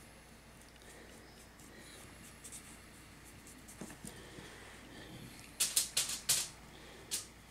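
Handling noise at a painting table: faint hiss, then a quick run of four or five sharp clicks about six seconds in and one more click near the end, as painting supplies are picked up or set down.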